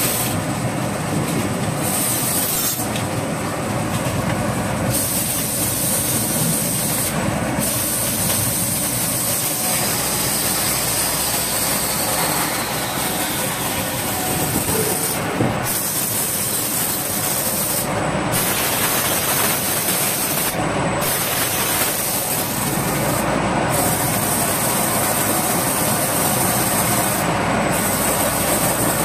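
SGL-104 automatic CNC screen printing machine for plastic bottles running, a steady, dense mechanical noise with no clear beat.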